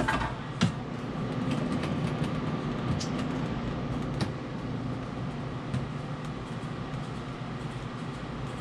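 A few short clicks and knocks from hands working on metal fittings of an ice machine's auger assembly, the sharpest just after the start, over a steady low hum.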